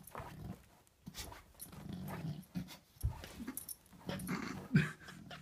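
English Bulldog breathing noisily and grunting in short irregular bursts as it squirms on its back, stuck and unable to roll over; one louder grunt near the end.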